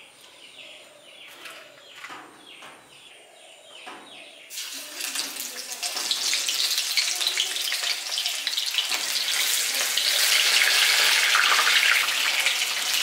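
Vegetable bora batter frying in hot oil in a kadai: a loud, dense sizzle that starts suddenly about four and a half seconds in and is strongest near the end. Before it, a run of short falling chirps.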